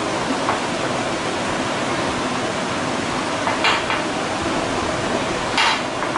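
Silicone spatula stirring and pressing a thick mixture in a glass bowl, with a few short clicks against the glass about three and a half seconds in and again near the end, over a steady hiss.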